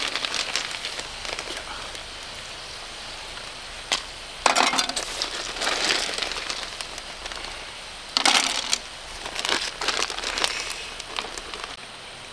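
A plastic bag crinkling and rustling in several bursts as it is handled, over a steady sizzle of meat frying in a cast iron skillet.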